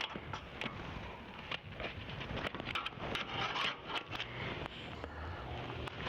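Irregular scraping and rubbing with scattered sharp clicks as a truck seat is stripped by hand, its factory cloth cover and foam being pulled off the metal seat frame.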